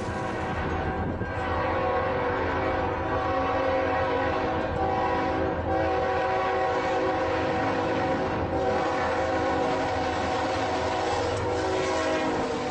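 Full-size train horn sounding a long, steady chord of several tones held together over the low rumble of the moving train.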